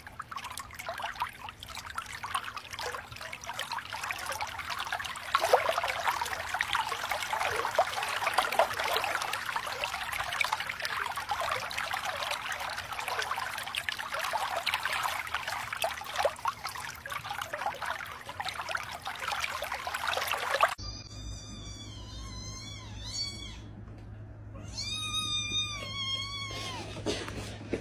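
Water trickling and splashing from an electric pet water fountain's spout as a kitten paws at the stream. About two-thirds of the way through, this gives way to a series of short, high cat mews.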